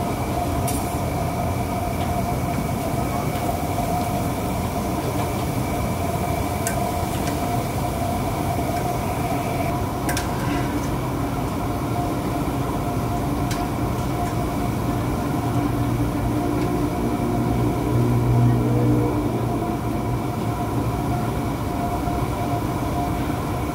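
Papadums deep-frying in a large wok of hot oil, over a loud, steady roar of kitchen equipment with a few steady tones in it. A few light metal clicks, typical of a wire ladle on the wok, come through it, and the low rumble swells briefly near the end.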